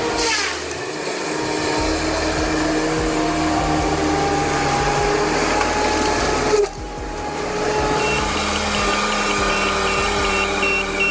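A machine motor running steadily, dipping briefly about two-thirds of the way in, with a fast regular beeping over the last few seconds.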